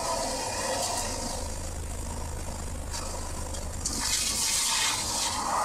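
Nissan GT-R running at speed with engine rumble and wind noise. From about four seconds in comes a loud hissing rush as the car runs off the track onto grass, its wheels throwing up dirt and grass.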